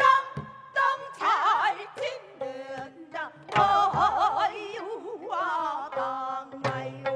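Two women singing gayageum byeongchang, Korean sung-while-plucking pansori style, with a wide, bending vibrato, over plucked gayageum strings and strokes of a janggu hourglass drum.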